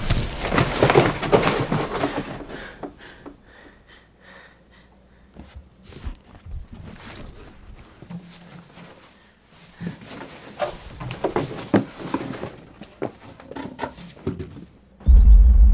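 Scattered knocks, taps and rustling handling noises in a small room, louder at the start, then faint and sparse. Loud music with a heavy low end comes in near the end.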